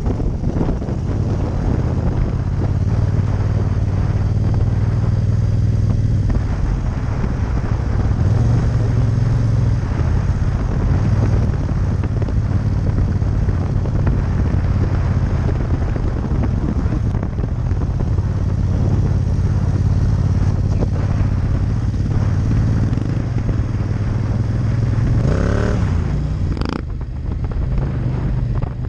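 Yamaha MT-07 Tracer's 689 cc parallel-twin engine running at low speed, mixed with heavy wind noise on the microphone. Near the end the engine pitch rises briefly, followed by a short click.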